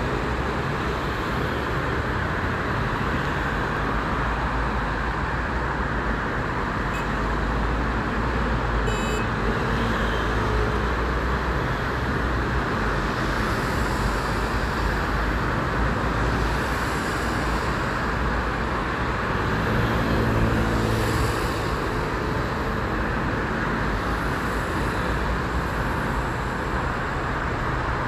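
Steady road traffic noise from many vehicles, swelling briefly about twenty seconds in as a heavier vehicle passes closer.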